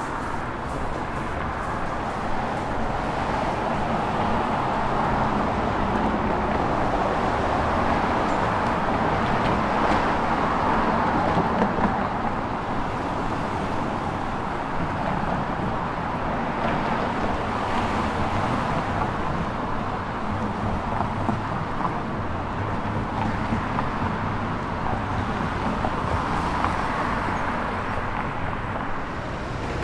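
Road traffic: cars driving past, their engine and tyre noise swelling and fading several times, loudest about ten seconds in.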